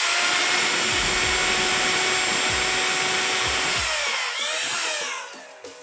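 JCB 26 mm hammer drill's brushed motor running steadily on a test run with the housing open, just after its carbon brushes and brush springs were fitted; its whine wavers in pitch and it winds down about five seconds in.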